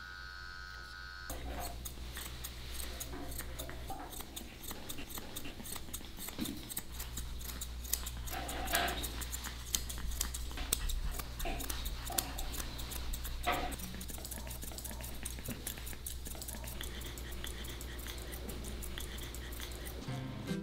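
Grooming shears snipping through a Pekingese's long coat in quick, irregular clicks over a steady low hum, starting about a second in. The dog makes a couple of brief sounds midway.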